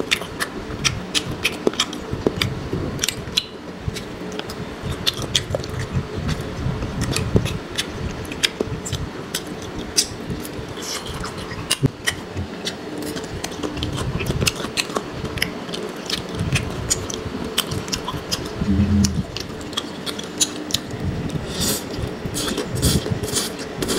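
Close-miked eating sounds: chewing with frequent small wet clicks, then a slurp of noodles near the end.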